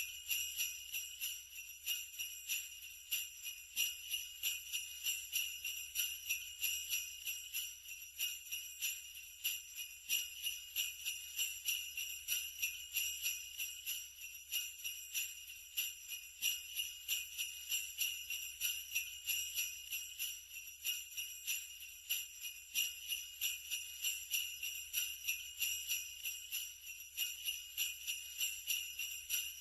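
Sleigh bells shaken in a steady, continuous rhythm of bright jingles.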